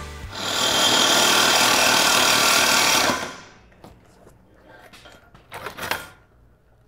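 Cordless Milwaukee Super Sawzall reciprocating saw with a carbide metal-cutting blade sawing through a thick steel I-beam: a steady, harsh, hissing cut with a high whine. It stops a little after three seconds in, followed by a few quiet clinks as the saw is handled.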